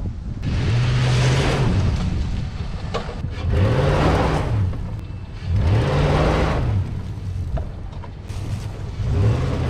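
A 2004 Nissan Titan's V8 engine revving up and easing off in four surges a couple of seconds apart, each with a rushing noise, as the truck is driven on a hill to test its freshly repaired four-wheel drive.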